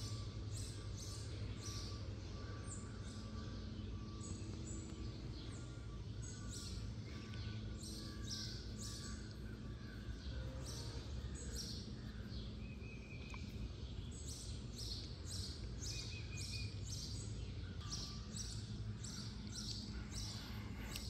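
Birds chirping repeatedly over a steady low background rumble.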